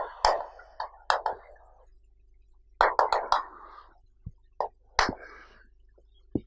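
Chalk tapping and scratching on a chalkboard as words are written by hand, in three clusters of quick taps and scrapes with short pauses between them.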